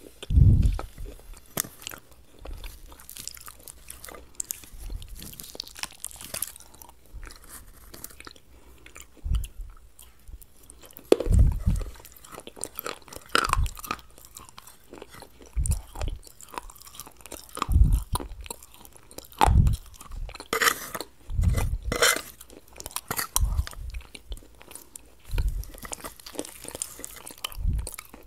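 Close-miked chewing and crunching of dahi papdi chaat, crisp papdi in yogurt and chutney, with irregular crunchy bites and wet mouth sounds that come more often in the second half.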